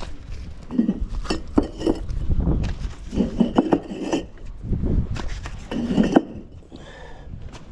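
Fired clay bricks knocking and clinking against one another as they are lifted from a stack and set down by hand, in a string of sharp, irregular knocks.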